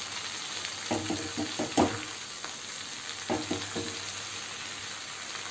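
Chopped water spinach and green amaranth sizzling in hot mustard oil in a kadai while a slotted metal spoon stirs and turns the greens. A steady hiss runs under two clusters of scraping strokes, one about a second in and one about three and a half seconds in.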